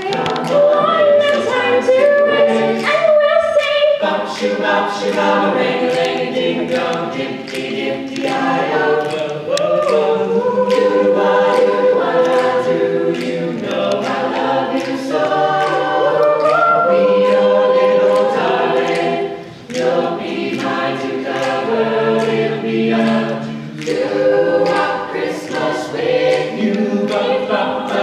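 Choir singing, many voices together, with a short break in the singing about two-thirds of the way through.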